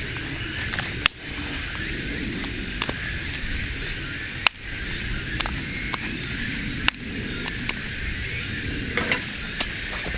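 Small dry twigs being snapped by hand into short lengths as fuel for a wood-gas twig stove: about ten sharp cracks at irregular intervals, over a steady background hiss.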